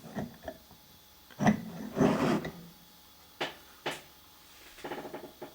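Metallic clicks, knocks and short rattling bursts from the Emco Compact 5 lathe's tool turret mechanism as it is moved and engages. Two sharp clicks stand apart in the middle, and a longer rattle comes near the end.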